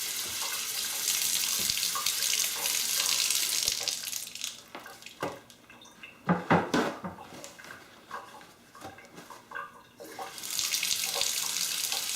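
Water running from a Moen two-handle kitchen faucet into the sink, freshly fitted with 1224 cartridges and being tested. The flow is shut off about four seconds in. A few knocks and clicks follow as the handles are worked, and the water is turned on again about two seconds before the end.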